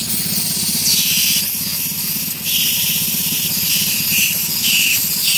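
Compressed-air blow gun hissing in several short blasts over a steady hiss, blowing dried rubber finger caps off their moulds. A steady low hum runs underneath.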